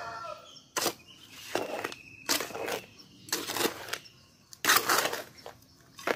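Small trowel scraping and turning a dry mix of cement and gravelly sand in a basin, before any water is added. It goes in about six scraping strokes roughly a second apart.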